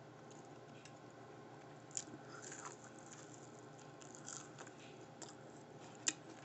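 Faint sounds of a person biting into and chewing a piece of deep-fried sushi burrito, with a few small crisp clicks, the sharpest near the end.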